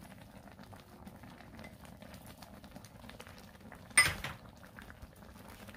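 Chili sauce simmering in a cast iron pan over charcoal, a faint steady bubbling and crackle. About four seconds in there is one sharp knock.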